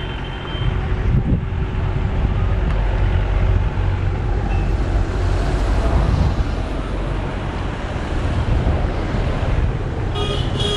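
Road traffic running steadily, a low rumble, with a vehicle horn sounding briefly at the start and again near the end.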